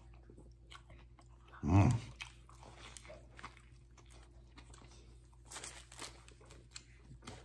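A man biting into and chewing a sub sandwich close to the microphone, with small wet clicks and soft crunches of bread and lettuce. One short, loud, low vocal sound comes about two seconds in.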